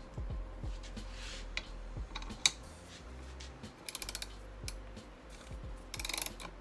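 Socket ratchet clicking in quick runs of pawl clicks as it turns a long bolt into a stuck star washer on a brake backing plate, with one sharp, louder click about two and a half seconds in.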